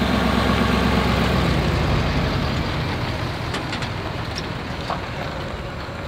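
Pickup truck engine running low and steady as it slowly tows a travel trailer past, fading a little as it moves away.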